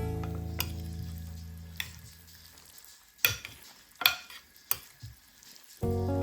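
Background music dies away, then a cooking utensil knocks sharply against a pan four times over a faint frying sizzle. The music comes back near the end.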